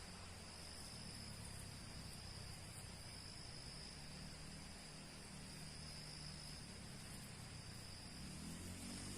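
Faint, steady insect chorus: an unbroken high-pitched buzz over a soft hiss.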